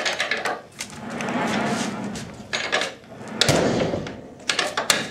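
Metal latch on a wooden horse-stall door being worked by hand: a string of metallic clicks and rattles with knocks against the wooden door.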